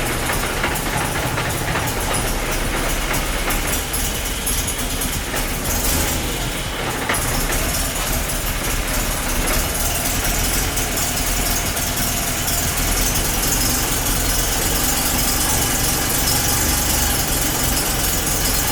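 Audi 90 quattro's five-cylinder engine idling steadily.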